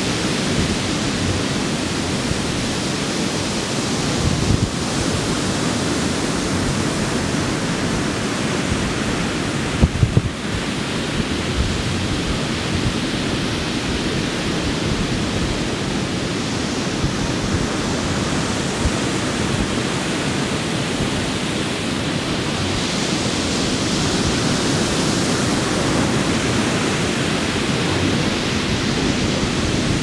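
Pacific Ocean surf breaking and washing up a sandy beach in a steady rush, with two brief low thumps, one a few seconds in and one about ten seconds in.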